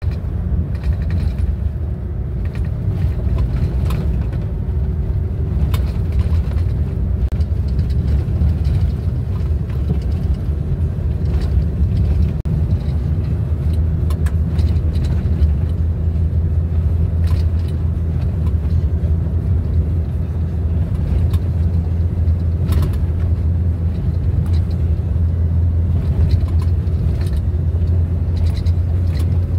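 Car driving on a gravel dirt road, heard from inside the cabin: a steady low rumble of tyres and engine, with scattered light clicks and rattles.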